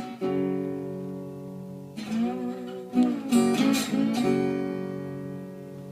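Acoustic guitar strummed: a chord just after the start, then a few more strums between about two and four seconds in, left ringing and slowly fading.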